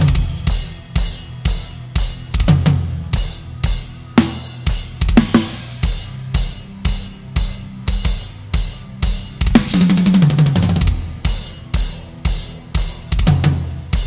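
Heavy metal drum kit played live with the band: hard bass-drum and snare hits about twice a second under Sabian HHX cymbals, with the bass and guitars sounding low beneath. A longer cymbal wash comes about two thirds of the way through.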